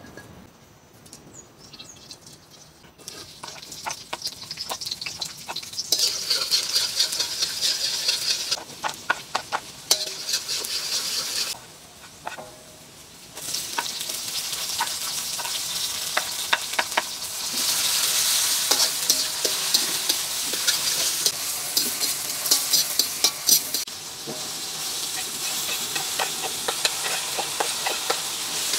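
Ingredients frying and sizzling in hot oil in a steel wok as they are stirred, with a metal slotted spatula scraping and clicking against the pan. The sizzle starts about three seconds in, dips briefly around the middle, and is louder in the second half.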